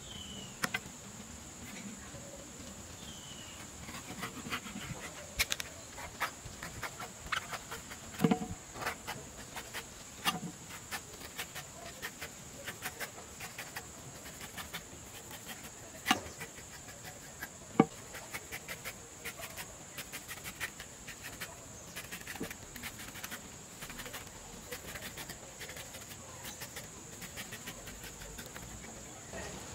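A knife cutting and peeling the fibrous husk of an orange king coconut: irregular sharp clicks, cuts and knocks, a few much louder in the middle. A steady high-pitched insect drone runs underneath.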